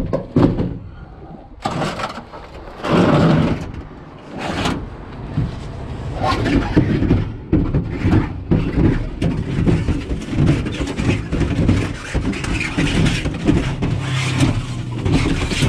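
A heavy washing machine being slid and bumped down a staircase: irregular knocks and scraping, more continuous scraping from about six seconds in.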